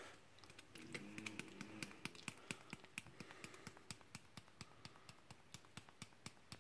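Faint, quick clicks, several a second, from a small container of ground nutmeg being shaken and tapped over a steel mixing bowl of flour. They start about a second in.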